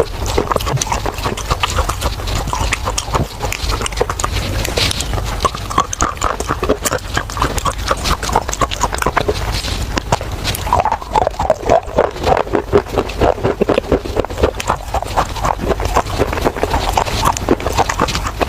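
Close-miked crunching and chewing of baked clay pot pieces: a dense, continuous run of crisp cracks and crackles.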